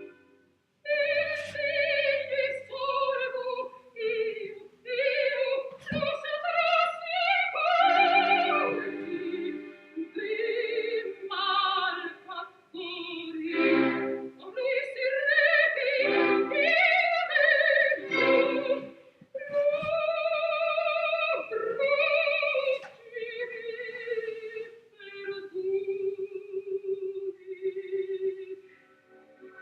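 Operatic-style singing: a single voice with wide vibrato sings phrases separated by short breaths, holding one long steady note near the end.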